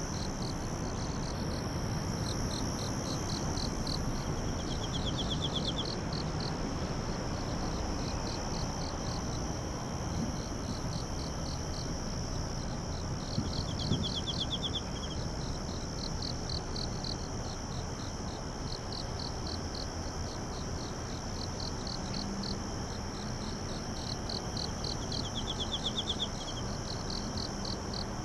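Night insects calling together: a steady high trill with repeated runs of evenly pulsed chirps just below it. A faster, lower trill cuts in briefly three times, near the start, about halfway through and near the end.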